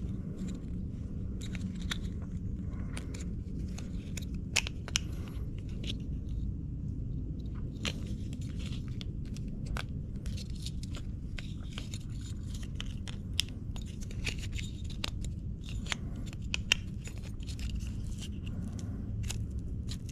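Hands working the small plastic parts of a steering-wheel control box and its housing: scattered clicks, snaps and scraping, a few sharper clicks standing out, over a steady low hum.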